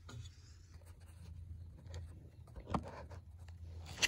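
Phone camera being handled and set in place: faint rubbing and scraping with one sharper knock partway through, over a low steady hum, and a louder rustle at the very end.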